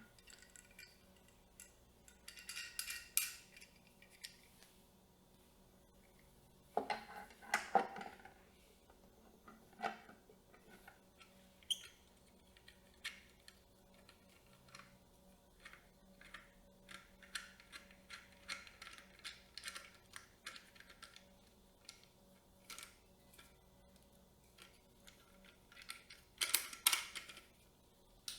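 Camera rig parts being handled and fitted: a run of small clicks, taps and scrapes, with louder clusters of handling about two to three seconds in, around seven to eight seconds in, and near the end.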